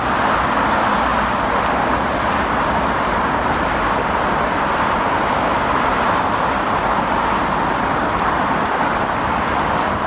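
Steady, unbroken city road traffic: a continuous wash of passing vehicles.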